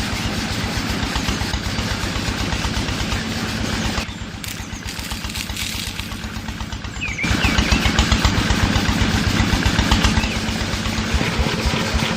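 An engine running steadily with a rapid, even putt-putt beat. It drops quieter and duller for about three seconds in the middle, then comes back louder.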